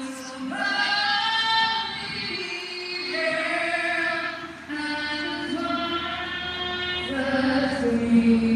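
A woman singing slow, long held notes.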